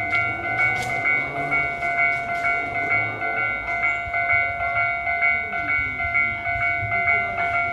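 Electronic railway warning bell ringing in an even repeating pattern, about two strikes a second.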